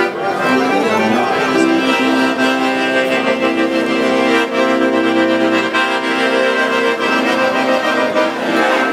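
Piano accordion playing long held chords that shift a few times.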